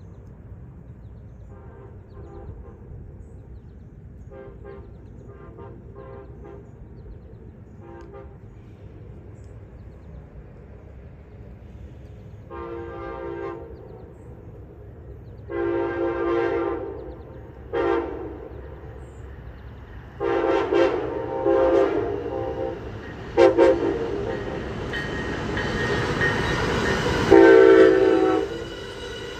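Nathan K5LA five-chime air horn on an Amtrak electric train: faint short blasts in the distance, then louder blasts in a long-long-short-long pattern, the grade-crossing signal, as the train closes in. The train then passes with a rising rush of wheels and cars, under one more loud long blast near the end.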